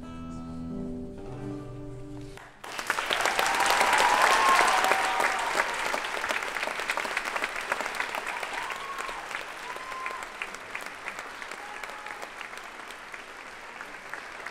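The last notes of a song with guitar end about two and a half seconds in, and an audience breaks into loud applause with cheers and whoops that slowly die down.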